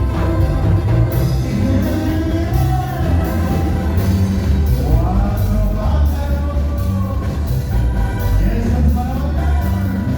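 Live band music with a singer, heavy bass and a steady drum beat.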